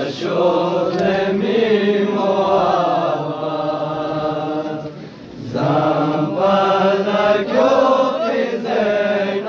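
Group of male voices chanting a noha, a Shia Muharram lament, together in a rising and falling melody. The chant breaks off briefly just after halfway through and then resumes.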